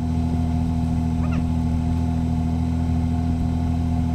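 Car engine idling steadily, with a brief faint high chirp about a second in.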